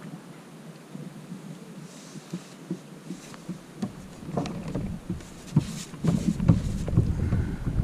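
Irregular knocks and clicks of handling noise, busier and louder in the second half, with a low wind rumble on the microphone from about four seconds in.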